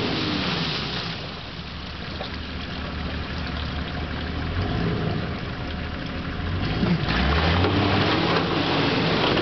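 Nissan Patrol GR's 2.8 straight-six turbodiesel engine working under load as the vehicle pushes through shallow water, mud and ice, with water splashing around the tyres. The revs rise sharply about seven seconds in.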